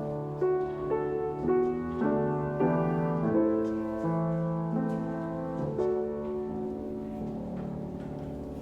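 Slow, quiet instrumental music, likely piano: notes and chords struck and left to ring, the last chord dying away near the end.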